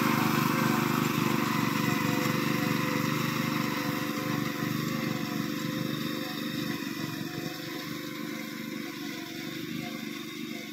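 Small engine of a Honda walk-behind paddy reaper running steadily under load while cutting rice stalks, growing fainter as the machine moves away.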